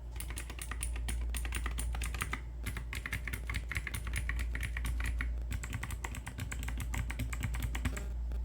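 Rapid typing on clicky mechanical keyboard switches: a fast run of sharp clicks, broken by two short pauses, over a steady low hum.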